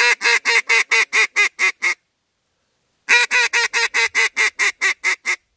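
Duck call blown in the comeback call: two runs of about ten fast, loud quacks each, about a second apart. It is the louder, more aggressive call given when a duck has ignored the greeting and keeps flying on.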